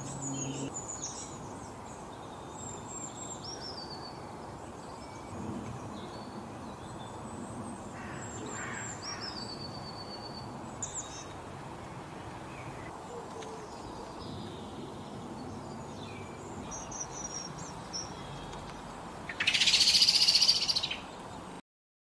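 Garden birds: scattered high chirps and short song phrases over a steady background hiss, then a much louder call lasting about a second and a half near the end, after which the sound cuts off.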